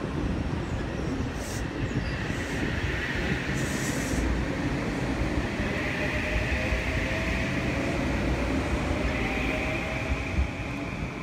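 Metro-North M8 electric multiple-unit train rolling past close by and pulling out: a steady rumble of wheels on rail with a faint squeal, which falls away near the end as the last car goes by.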